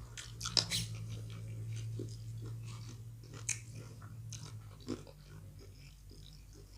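Close-up mouth sounds of eating fufu and egusi soup: wet smacking, chewing and swallowing, with scattered sharp clicks, the loudest about half a second in. A low steady hum runs underneath.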